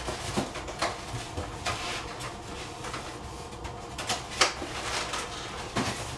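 Irregular clicks, taps and clinks of kitchen utensils and dishes, a dozen or so short knocks, the loudest about four and a half seconds in.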